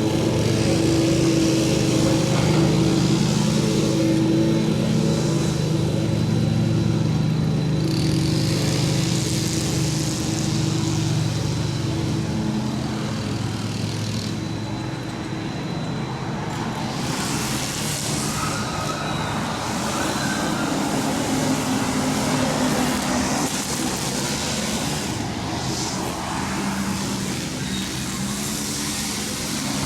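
An engine running steadily, its drone strongest for the first dozen seconds and easing after, with rushing noise coming and going.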